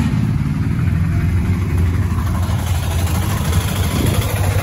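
Motor scooter engine running steadily while riding, a low even drone.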